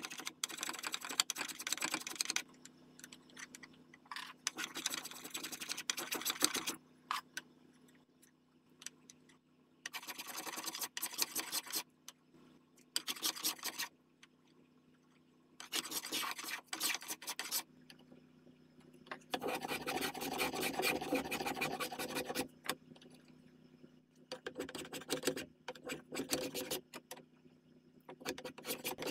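A spokeshave and a file worked by hand along a walnut rifle stock: repeated scraping strokes, each a second or two long, with short pauses between; the longest stroke comes about two-thirds of the way in.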